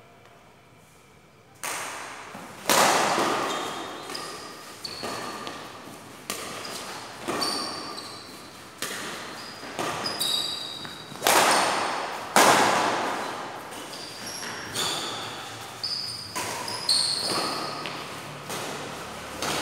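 Badminton rally: a shuttlecock struck back and forth by rackets, sharp hits about once a second that echo around the large hall, starting about a second and a half in. Short high squeaks come between the hits.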